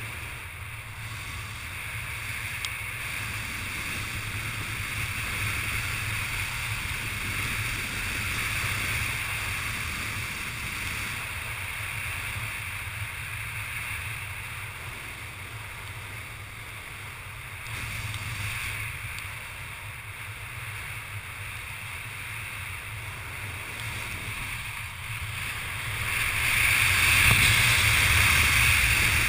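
Wind rushing over a helmet-mounted GoPro under an open parachute canopy: a steady hiss and rumble that grows louder near the end.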